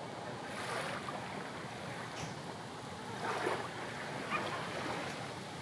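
Steady hiss of wind and gentle sea surf, with a couple of faint short sounds about three and four seconds in.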